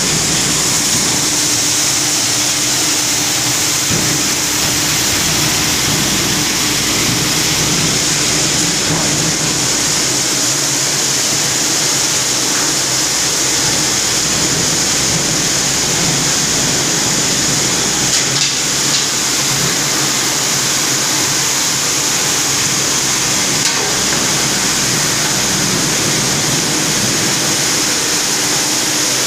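Grain-cleaning machinery running: an ASM 50 AK grain separator with its aspiration fan, together with a scraper conveyor, giving a loud, steady mechanical din with a strong hiss. A faint steady hum sits under it for the first dozen seconds or so.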